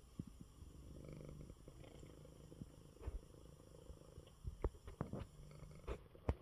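Domestic cat purring, a faint steady low rumble, with a few brief knocks in the second half.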